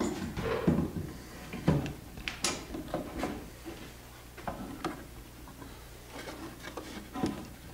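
A clamp being set and tightened on glued wooden boat timbers: scattered clicks and knocks of metal and wood, irregular and spaced through the whole stretch.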